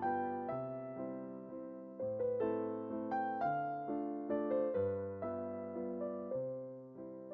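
Background music: a slow, gentle solo piano piece, with a low bass note every second or so under a soft melody.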